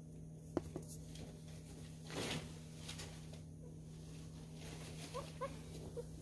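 Newborn miniature schnauzer puppy giving three or four short, faint squeaks near the end, after a brief rustle of handling about two seconds in.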